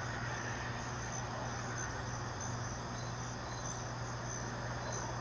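Crickets trilling steadily in a high, unbroken chorus over a constant low hum and hiss.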